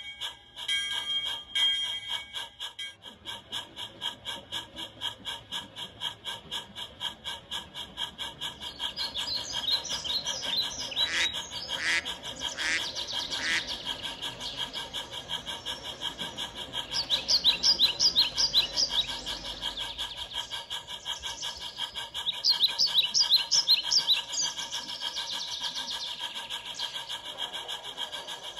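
Model steam locomotive's sound unit chuffing in a steady, rapid rhythm as the train runs, with clusters of bird chirps over it.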